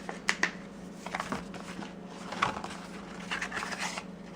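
Hands handling the paper and card documentation packet from an iPad 2 box: light rustles, slides and a few sharp taps as the packet is opened and the leaflets are taken out, over a steady low hum.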